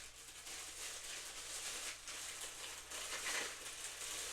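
Plastic packaging rustling and crinkling in uneven strokes as it is handled.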